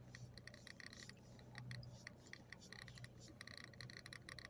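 Faint, rapid, uneven clicking over a steady low hum.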